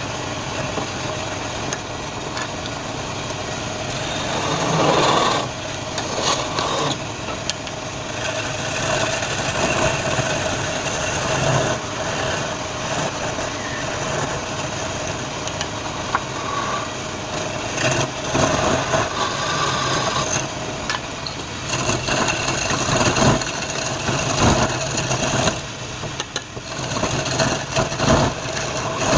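Wood lathe running with a steady motor hum while a turning tool cuts the spinning wood in uneven scraping passes that swell and fade every second or two.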